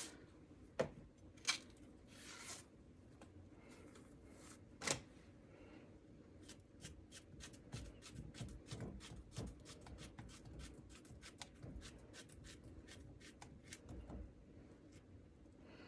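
Faint, quick clicks and taps of kitchen utensils: a few separate knocks at first, then a steady run of about three to four light clicks a second for several seconds.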